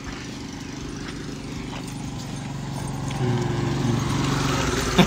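Motor scooter's small petrol engine running as it rides up a dirt track, getting louder about three seconds in as it draws near.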